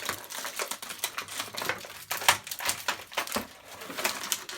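Small hard-plastic toy pieces clicking and tapping as hands work a Shopkins toy oven open: an irregular run of sharp clicks.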